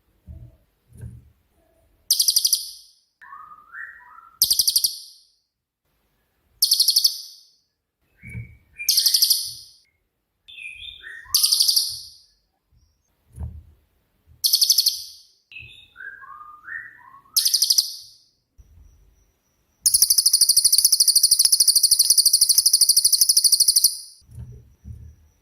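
Cililin bird singing: short, loud, rattling high-pitched trills repeated about every two seconds, with softer lower rising chirps between them, then one long trill of about four seconds near the end. This is the rapid 'tembakan' song that keepers use as a tutor for other songbirds.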